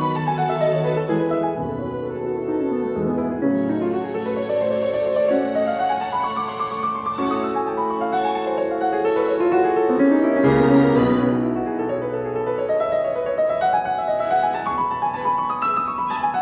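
Background instrumental music: piano with bowed strings, playing flowing runs of notes that sweep up and down.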